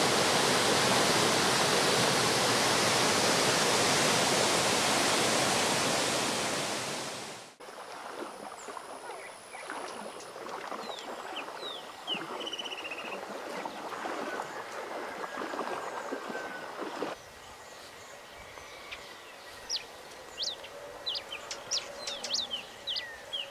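Muddy floodwater pouring over a low concrete spillway as the lagoon overflows, a loud steady rush that cuts off suddenly about seven and a half seconds in. Then a quieter outdoor background with birds chirping, the calls coming thick and fast near the end.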